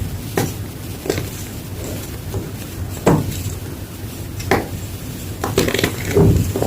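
Blocks of gym chalk crunching and crumbling in irregular sharp crunches, spaced a second or two apart and crowding together near the end.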